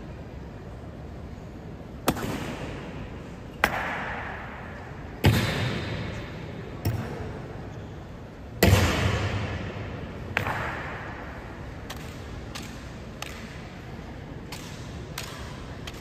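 Honor guard drill: about six sharp strikes on the memorial hall's stone floor, roughly every one and a half to two seconds, each ringing out in a long echo through the large hall, then a few lighter clicks.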